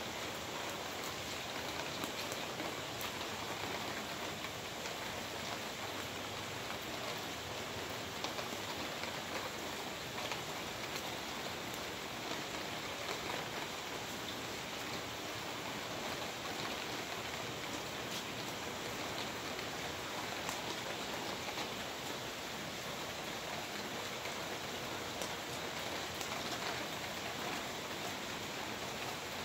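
Steady rain falling on a wet concrete patio, with scattered sharper ticks of single drops.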